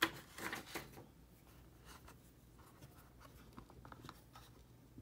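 A pen on paper: faint scratching and small taps, with the sharpest ticks in the first second.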